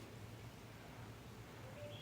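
Faint, low rumbling snore of a sleeping young bear, coming and going in short pulses over faint outdoor background noise.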